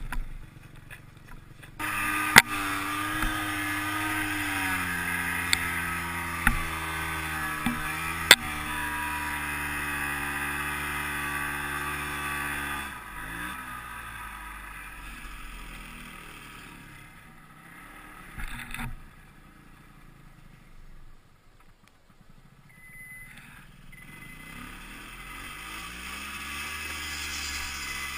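Ski-Doo Tundra snowmobile engine coming on throttle about two seconds in and running hard and steady through deep powder. It eases off with a falling pitch around halfway, runs low for a while, then revs up again with a rising pitch near the end. A few sharp knocks come while it runs hard.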